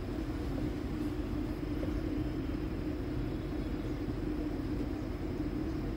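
Steady low background rumble with a constant low hum, unchanging throughout.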